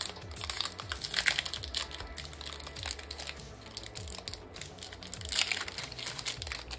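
Foil Pokémon booster pack wrapper being torn open and crinkled by hand: irregular crackling, loudest about a second in and again around five seconds.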